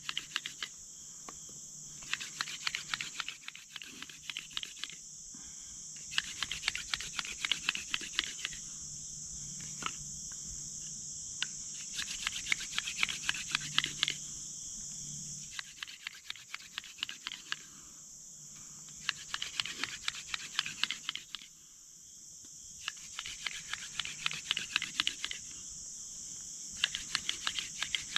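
Hand-drill fire-making: a dog fennel spindle spun between the palms grinds in a cedar fireboard, giving rapid rasping clicks in runs of a few seconds with brief breaks. Crickets or other insects trill steadily in the background.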